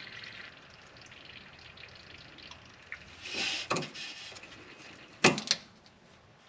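Brake fluid being drawn by a hand vacuum bleeder through the brake caliper's bleed nipple and hose into its catch jar, a faint liquid trickle with a short hiss about three and a half seconds in. The fluid is running clean, the sign that the old fluid has been flushed from the line. Two sharp clicks follow a little after five seconds.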